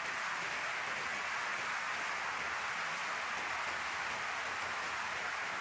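Steady wind: an even, unbroken hiss with no gusts or swells.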